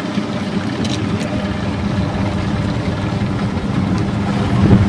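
A boat engine running steadily, a low, even drone on the river.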